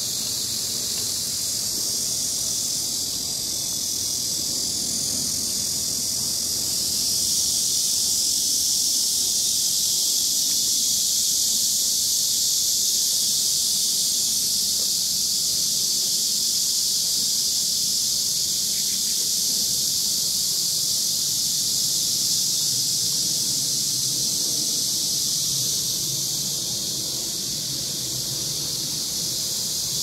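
Steady, dense, high-pitched insect chorus, a continuous shrill drone that gets a little louder about seven seconds in.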